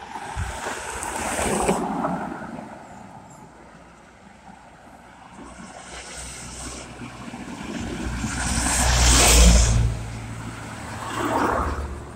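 Cars passing close by on a paved road, each one's tyre and engine noise swelling and fading. Three go by: one early, the loudest about nine seconds in, and another shortly after.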